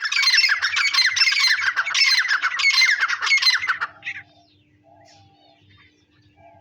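Teetar (francolin) calling loudly in a rapid run of harsh, repeated notes for about four seconds, then stopping, leaving faint chirps over a steady low hum.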